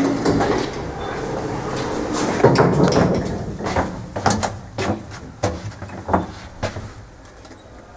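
Passenger elevator's sliding doors rolling with a sustained rumble. This is followed by a string of sharp clicks and knocks over the next few seconds.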